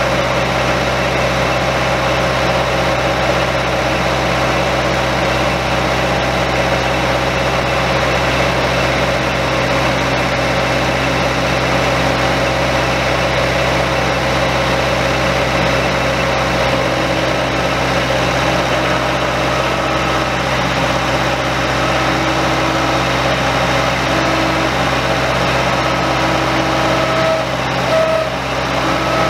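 Bobcat 825 skid steer's engine running steadily. About halfway through, a higher steady whine joins in as the hydraulics raise the loader arms.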